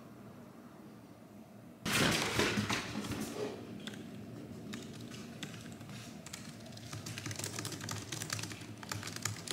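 Typing on a computer keyboard: a long run of quick key clicks that grows busier toward the end. It follows a loud burst of noise about two seconds in that lasts about a second and a half.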